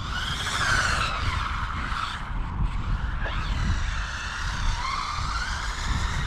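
Electric whine of small 1/16-scale brushless RC car motors, rising and falling in pitch as the cars speed up and slow down.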